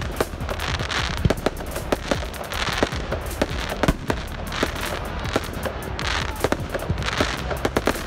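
Aerial fireworks bursting overhead in a quick, irregular run of sharp bangs, several a second, with hissing between them.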